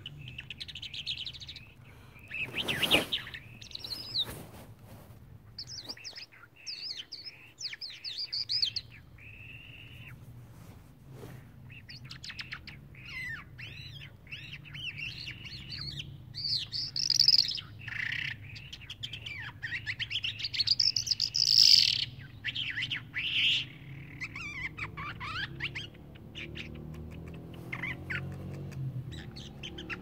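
A small caged songbird singing a long, varied run of fast chirps, trills and warbled phrases, loudest about two thirds of the way through. Two brief knocks a few seconds in, over a low steady hum.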